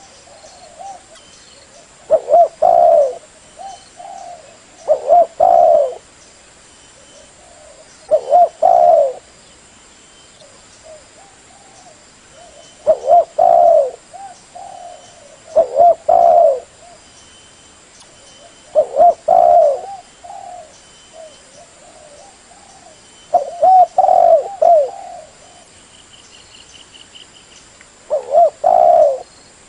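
Spotted dove (tekukur) cooing: about eight short phrases of a few low, rolling coos each, repeated every few seconds with longer pauses now and then.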